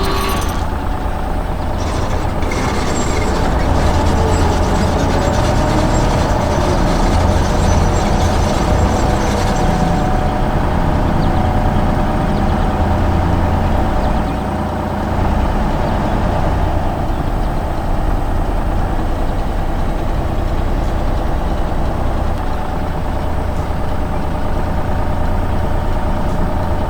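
Heavy vehicle engine running steadily with a deep rumble, easing briefly about halfway through.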